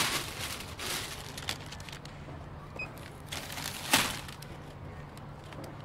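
Rustling of a bag being handled, in several short bursts with the loudest and sharpest about four seconds in, over a steady low hum.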